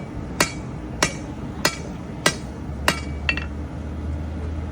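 Blacksmith's hammer striking hot steel on an anvil in a steady rhythm, about one blow every 0.6 s, each with a short metallic ring. A lighter strike follows, then the hammering stops and a low rumble comes in.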